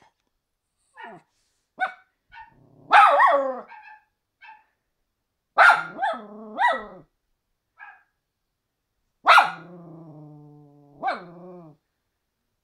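Dog barking in short, sharp barks, some coming in quick runs of two or three. About two-thirds of the way through there is one long, held vocal note.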